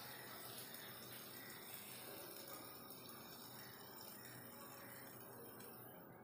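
Near silence: faint steady room hiss, its upper part dropping away near the end.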